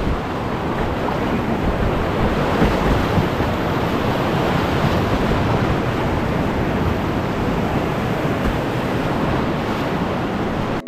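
Whitewater rapids rushing steadily around a kayak as it runs down through them.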